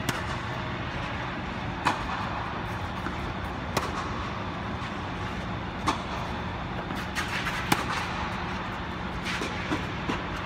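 Tennis racket strings hitting a tennis ball in a rally. Each stroke is a sharp pop, coming about every two seconds, with the nearer strokes loud and fainter pops in between. A steady machine hum runs underneath.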